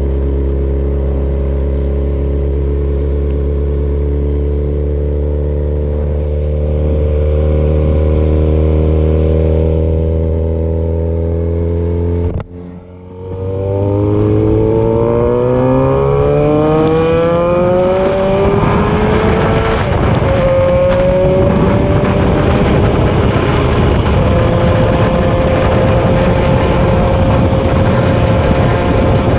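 A vehicle engine running steadily at low revs. After a brief break about twelve seconds in, it pulls away, its pitch climbing, dropping back at a gear change and climbing again. It then settles into steady cruising with road and wind noise.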